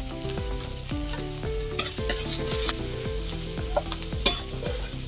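Chopped onion, garlic and green chillies sizzling in hot oil in an aluminium kadai. A metal spatula stirs and scrapes against the pan, with the sharpest scrapes about two seconds in and again just past four seconds.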